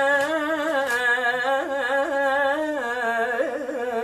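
A Quran reciter's voice holding one long, unbroken melodic line without clear words. It wavers through ornaments and slowly falls in pitch, in the melodic style of Quranic recitation.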